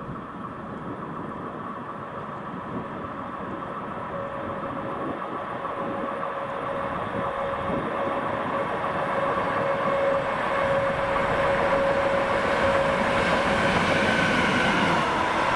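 Siemens ES 64 F4 (Class 189) electric locomotive hauling an intermodal freight train, approaching and growing steadily louder. It has a steady hum of a few even tones over the rolling noise of the wheels, and it is passing close by near the end.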